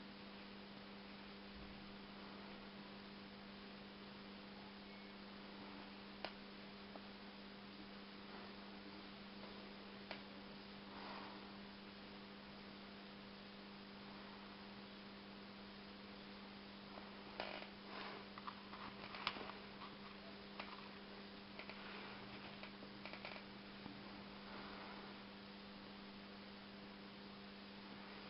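Faint steady electrical hum over a background hiss. A few brief soft crackles and ticks come and go, clustered in the second half.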